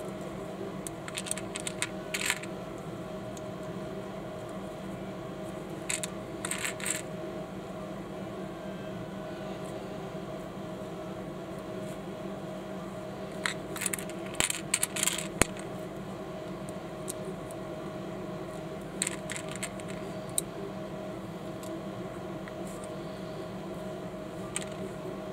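Small plastic Panlos Lego-compatible bricks clicking as they are pressed and snapped together, in short clusters of sharp clicks every few seconds, over a steady low hum.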